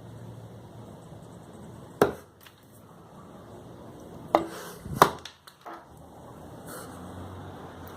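Four sharp knocks and clicks from handwork on small hard parts: one about two seconds in, two close together around four and a half to five seconds, and a lighter one just after, over a low steady hum.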